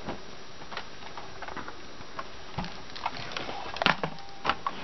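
Handling noise: cloth rustling, with scattered light taps and clicks, the sharpest about four seconds in.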